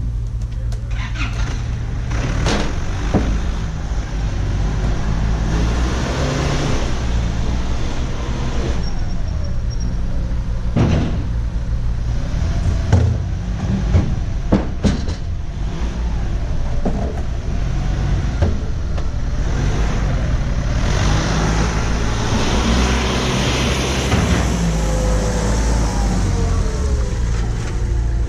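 A vehicle engine running steadily, with a few sharp knocks around the middle.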